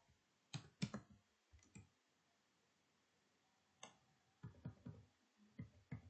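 Computer keyboard keystrokes: a few sharp key clicks in the first two seconds, a pause, then another run of clicks in the second half as code is typed and an autocomplete entry is picked.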